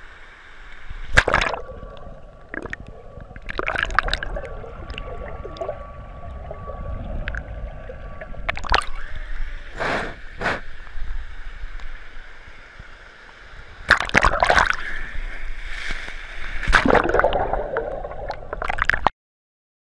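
Pool water sloshing and gurgling over an action camera held at the waterline, with repeated louder splashes as the water washes over it and it dips under. The sound cuts off suddenly just before the end.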